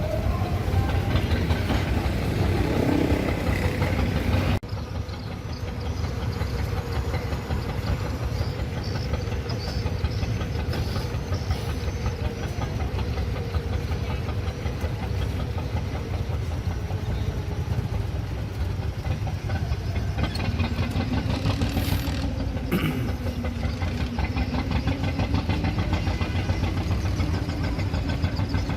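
Ferry boat's engine running steadily with a low, knocking rumble. About four and a half seconds in the sound changes abruptly, and near the end a steady tone rises and wavers in pitch.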